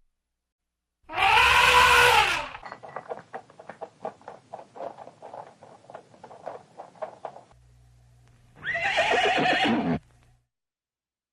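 A horse whinnying twice, each a loud call of about a second and a half with a wavering, falling pitch. Between the whinnies come a few seconds of irregular clicks and knocks, like hooves on a hard floor.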